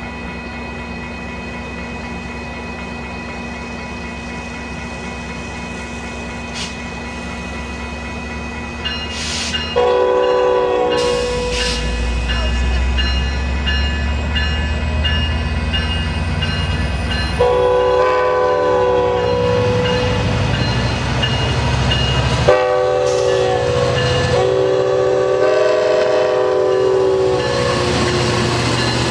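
Metra F59PHI diesel locomotive sounding its horn in the long-long-short-long grade-crossing pattern: a first long blast about ten seconds in, a second long blast, a short one and a final long blast near the end. The low rumble of the locomotive and its train passing builds from about the first blast on, and a bell rings in the background.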